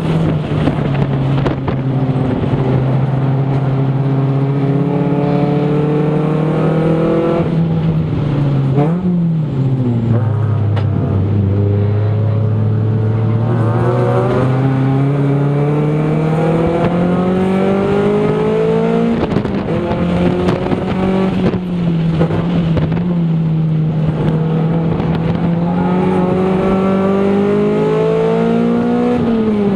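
Toyota Celica GT's 1.8-litre four-cylinder engine, heard from inside the cabin, pulling hard during an autocross run. Its pitch climbs and falls again and again as the driver accelerates, lifts and shifts, with sharper drops about nine seconds in and near the end.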